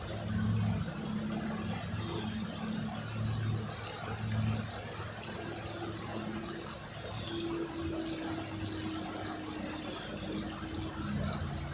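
River water running in a steady rush, with the low hum of a motor underneath that swells several times in the first few seconds and settles into a steadier tone from about halfway through.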